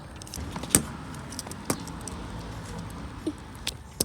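Small plastic toy parts and packaging being handled, with a few sharp clicks and light rattling.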